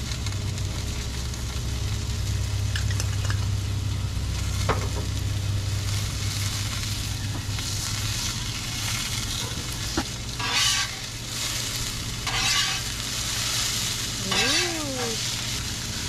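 Sausages and chopped vegetables sizzling steadily on a hot flat-top griddle. In the second half, a metal spatula scrapes across the griddle three times as the food is turned.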